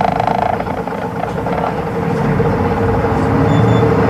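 Hino Rainbow II city bus with its inline-six diesel engine running under way, heard from inside the cabin. A steady whine runs throughout, and the engine note builds and grows louder about halfway through as the bus pulls.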